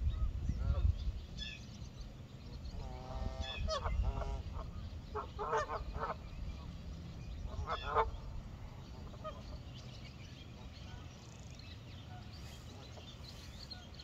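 Canada geese honking, a run of repeated honks from about three to eight seconds in, then fainter calls, over a low rumble.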